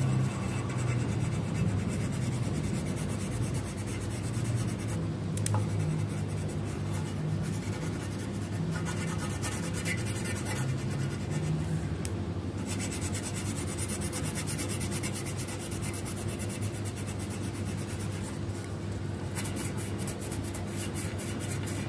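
Wooden colored pencil scratching on paper in quick, even back-and-forth shading strokes.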